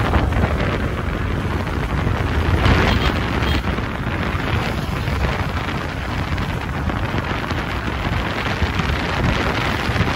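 Steady wind rushing over the microphone of a moving motorcycle, a dense low rumble of air and road noise with no pauses.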